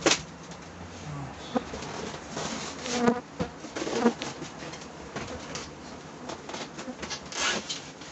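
Honeybees buzzing around an open hive, with a few sharp knocks and scrapes as wooden hive frames are handled.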